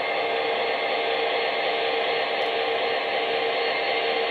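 Steady whirring diesel-locomotive running sound, hissy with faint steady tones, played through a small onboard speaker of an MTH HO-scale diesel locomotive's sound system.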